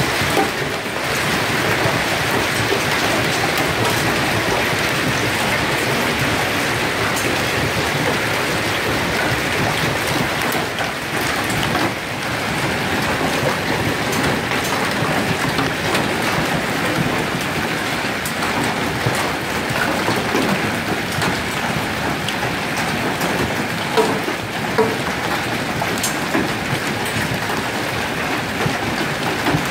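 Hail pelting down on cars and the ground: a dense, steady clatter of countless small impacts, with a couple of sharper single knocks near the end.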